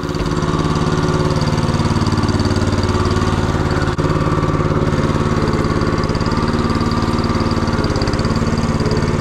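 Small engine of a motorized hay bale feeding cart running steadily with an even, fast beat.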